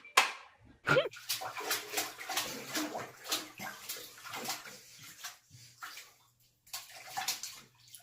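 Water splashing and sloshing in a bathtub in quick, irregular bursts, with a short lull about six seconds in.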